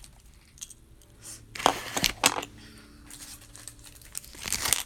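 Cardboard box and packaging rustling and crinkling as hands rummage inside it. There are two louder bursts, one about a second and a half in and one near the end, with a few small clicks.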